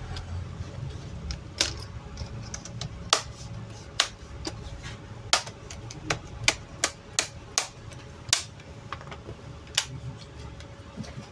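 Plastic snap clips of an HP 240 G6 laptop's screen bezel clicking into place as it is pressed along its edges onto the display panel. There are a dozen or more sharp clicks at an uneven pace, some louder than others.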